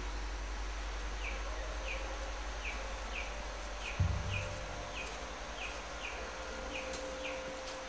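Outdoor chirping: a short, falling chirp repeats about every two-thirds of a second over a faint steady hiss of insects. A dull low thump comes about four seconds in.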